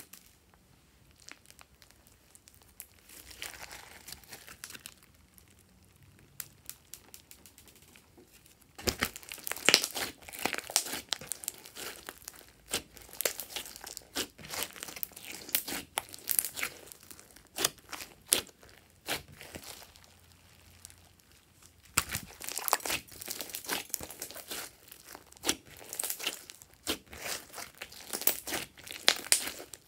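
Hands squeezing and kneading a large glossy slime mixed with small beads, making runs of sticky, wet popping and crackling squelches. It is faint for the first several seconds, then busy, with a short lull before it picks up again.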